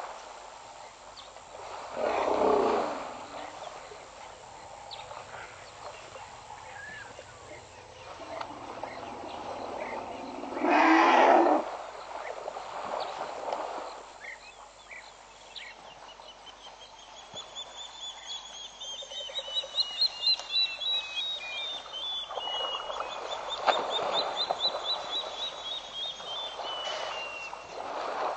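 Two loud, rough bursts from elephants bathing in a waterhole, about two and eleven seconds in. Through the second half a bird calls in repeated falling trills.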